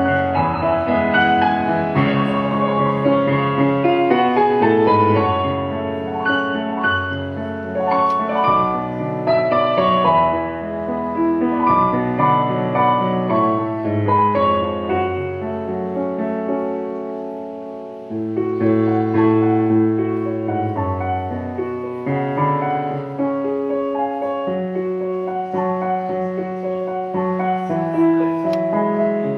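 Background piano music: a melody over held chords, fading briefly about two-thirds through before a new phrase comes in.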